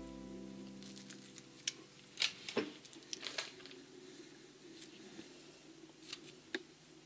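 Faint, scattered small clicks and rubbery squeaks of a water-and-glitter-filled balloon stress ball being squeezed and handled. A held musical tone fades out in the first second.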